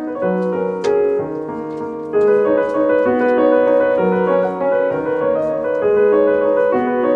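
Background piano music, a slow melody over a low note repeated about every two seconds.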